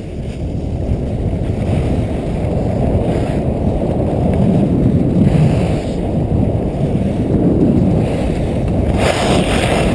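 Wind buffeting an action camera's microphone as a skier goes downhill, a low rumble that grows louder over the first few seconds as speed builds. Near the end a brighter hiss joins in, skis scraping over the snow.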